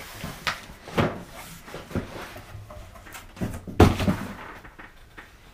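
Cardboard boxes scraping and knocking as a large gift box is pulled out of a cardboard shipping box, with a few sharp knocks and one heavy thump about four seconds in as the box is set down on a table.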